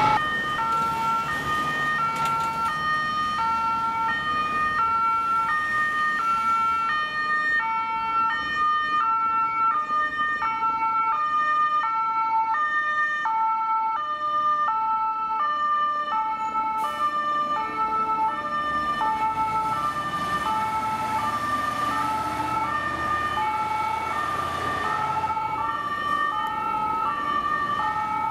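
Two-tone German emergency sirens (Martinshorn) on fire engines, at least two sounding at once at different pitches so their alternating high-low notes overlap out of step. Under them the trucks' diesel engines run, one rising in pitch about two-thirds of the way through as it pulls away.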